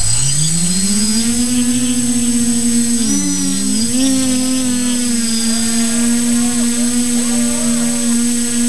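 Multirotor camera drone's electric motors and propellers spinning up for take-off: a whine that rises steeply in pitch over the first second and a half, wavers briefly about three seconds in, then holds steady as the drone climbs.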